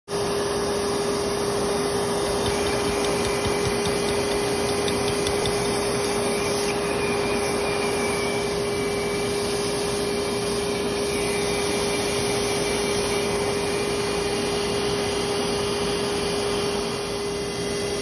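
Vacuum cleaner running steadily with a constant hum, its hose nozzle at the entrance of an in-ground yellowjacket nest to suck up the wasps as they come and go.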